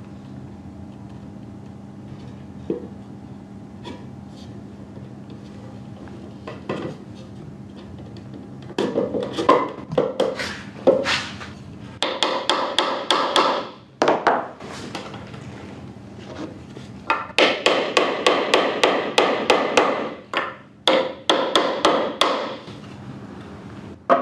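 Carpenter's hammer striking timber, knocking interlocking wooden joint pieces together: a few single knocks, then from about nine seconds in fast runs of light taps, up to about seven a second, with short pauses between runs. A faint steady low hum runs underneath.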